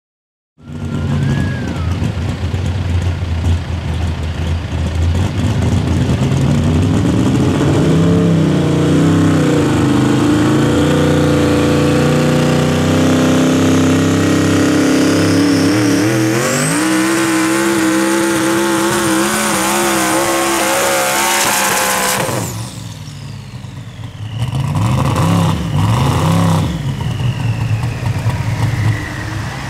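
Competition pulling vehicle's engine running loud at full throttle under load, its pitch climbing and dipping, with a high whistle that rises and then holds from about halfway. It drops off suddenly after about 22 seconds, then revs briefly a few more times.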